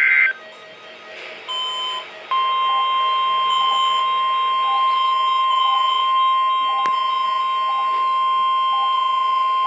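NOAA Weather Radio test broadcast through a Midland WR300 weather radio's speaker. A SAME digital header burst cuts off just after the start. After a pause of about two seconds, the steady 1050 Hz warning alarm tone comes on, briefly at first and then held without a break.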